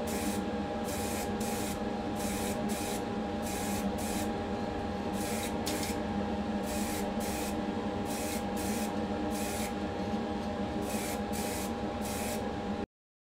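Paint being sprayed in many short hissing bursts, about two a second, applying the colour coat to a diecast model casting, over a steady motor hum. The sound cuts off abruptly near the end.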